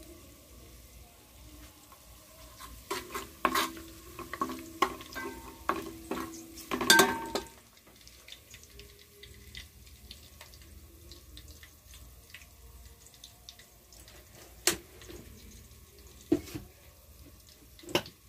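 Steel spoon stirring and scraping frying onions in an aluminium pot: a run of clattering metal strikes with a ringing note for about four seconds, loudest near the end of that run, then a few single knocks later, over a faint sizzle of oil.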